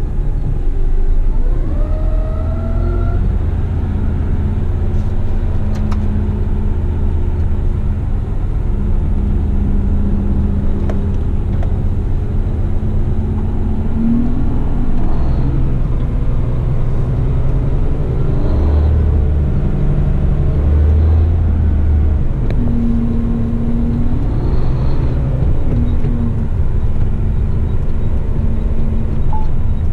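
Diesel engine of an eight-wheel twin-steer front-lift garbage truck heard from inside the cab, running steadily at low road speed, its note rising and falling as the truck moves off and slows. A faint rising whine comes in the first few seconds.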